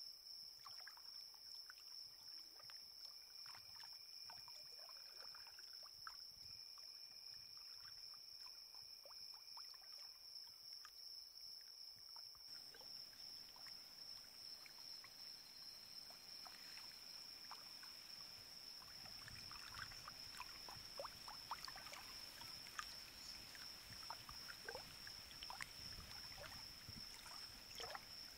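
Faint, steady, high-pitched insect drone, with scattered soft crackles and ticks that become busier about two-thirds of the way in.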